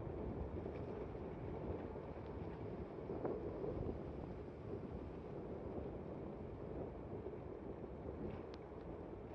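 Steady rushing of wind on the microphone mixed with tyre noise on a wet road as an e-bike rolls along.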